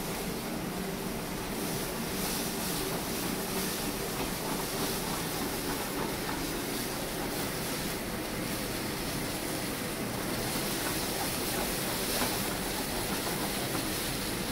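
Steady hissing rush of a sauté pan flambéing over a gas burner on a commercial range, the sauce sizzling as the flames burn off it.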